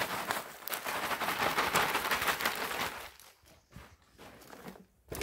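Potting mix pouring out of a plastic bag into a raised garden bed: a dense crackling rustle of soil and bag for about three seconds. It then drops to faint scraping and a few soft clicks as the soil is spread by hand.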